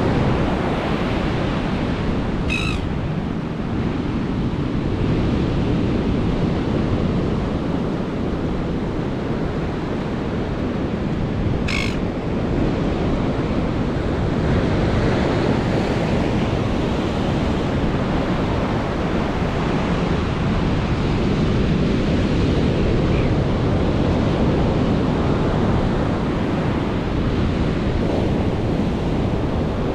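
Ocean surf breaking and washing up the beach in a steady, continuous rush, with wind buffeting the microphone. Two short high-pitched sounds cut through it, about 3 seconds in and again about 12 seconds in.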